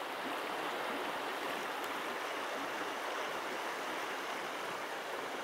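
Shallow river current flowing over a mud and rock bed: a steady, even rushing of water.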